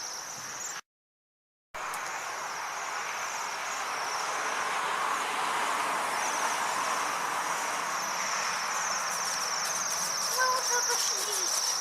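A flock of small birds twittering in a high, wavering chorus over a steady background hiss, broken by a complete dropout to silence about a second in.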